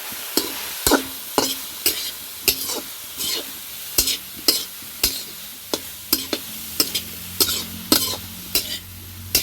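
Spoon or spatula stirring and scraping vegetables and spice powder frying in a pan, short scraping strokes about twice a second over a steady sizzle.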